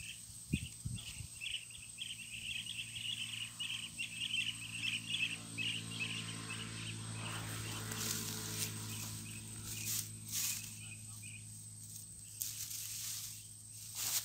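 Insects chirping in a fast, pulsing high trill that fades out about halfway through. Under it a low hum swells and fades in the middle, and a few sharp rustles come in the second half.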